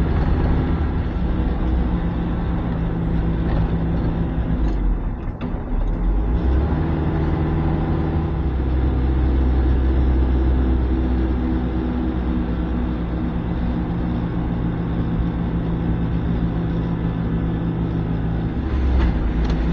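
Mercedes Vario 818 truck's diesel engine running steadily while holding the truck back on a steep descent with its engine brake. The engine note dips briefly and shifts about five or six seconds in.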